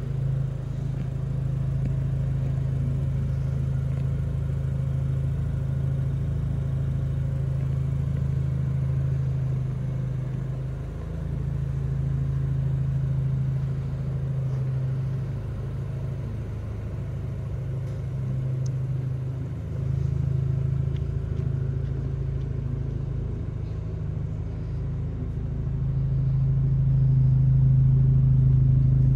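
BMW 220i's 2.0-litre turbocharged four-cylinder idling through an aftermarket 240i-style exhaust: a steady low drone with no revving, a little louder near the end at the tailpipes.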